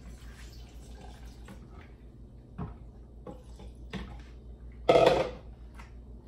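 Water being poured into a blender jar over soaked chiles, with a few light knocks and a louder half-second burst of noise about five seconds in.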